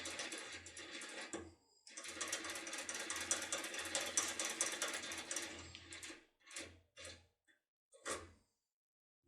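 Rapid metallic clicking and rattling of a foil pick being jiggled up and down in the keyway of a Securemme K50 cylinder lock, in two long runs, then a few separate clicks.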